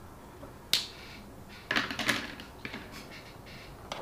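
Sharp clicks and short rattles of small hard plastic and metal parts being handled on a workbench during the assembly of an RC car kit. A single loud click about a second in is followed by a cluster of clicks and rattles, then a few lighter ones.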